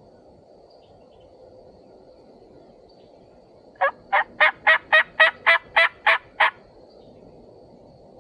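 Wild turkey yelping: a run of about ten short, evenly spaced yelps, about four a second, lasting under three seconds.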